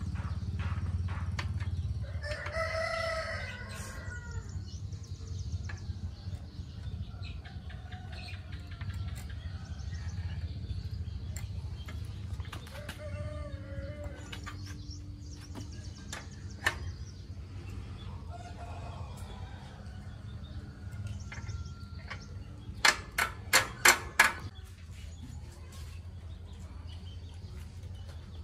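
A rooster crows about two seconds in, and chickens call faintly now and then over a low steady hum. A quick run of about five sharp clicks comes near the end.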